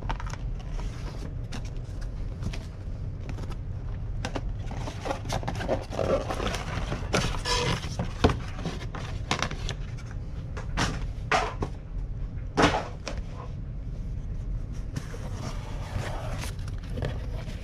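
Cardboard packaging handled and opened by hand: scattered scrapes, rustles and light taps of cardboard, with a couple of sharper knocks, over a steady low hum.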